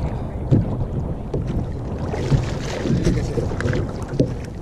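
Wind rumbling on the microphone and choppy sea water slapping against a plastic sit-on-top kayak, with a few light knocks and a brief splashing hiss a couple of seconds in.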